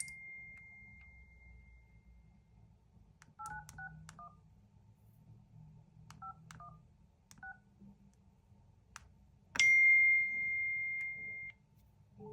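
Phone keypad dialing tones: about eight short two-pitch beeps in small groups, as digits are tapped in. A steady high electronic beep lasts about two seconds near the end and is the loudest sound, and another high tone fades out in the first couple of seconds.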